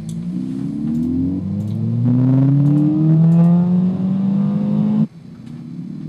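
Recording of a Ford Fiesta ST's 1.6-litre turbocharged four-cylinder at wide-open throttle, played back, its pitch rising steadily as the revs climb. About five seconds in it cuts off suddenly and restarts quieter, as the playback is toggled between the versions with and without the Sound Symposer.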